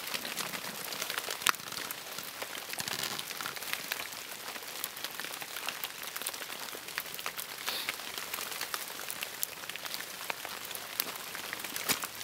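Light rain pattering: many small, irregular drop ticks over a soft steady hiss.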